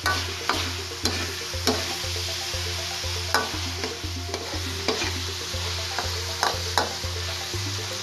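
Spatula scraping and knocking against a pan in irregular strokes while stirring diced pork and pork liver that sizzle in oil and soy sauce. Background music with a steady low beat plays underneath.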